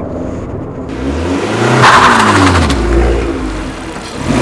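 Abarth 595's 1.4-litre turbocharged four-cylinder engine accelerating hard, with a broad rush of noise. The engine note swells, is loudest about two seconds in, then falls away, and swells again near the end.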